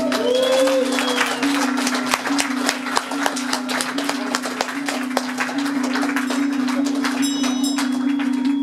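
An audience clapping and applauding, with a held musical note droning underneath and a voice calling out briefly about a second in.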